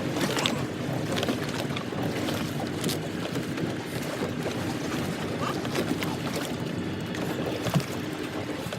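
Fishing boat's engine running steadily under a wash of wind and water noise, with a few small knocks scattered through it.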